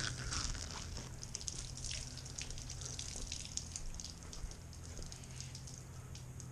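Metal foil tape crackling and crinkling as it is peeled off an engine block's deck, with many small ticks that thin out toward the end, over a steady low hum.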